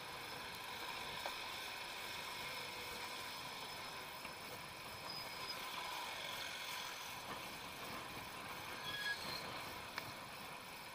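Steady riding noise from an electric bicycle on a road beside slow traffic, mostly tyre and wind hiss. There are a few brief high tones about nine seconds in and a single click near the end.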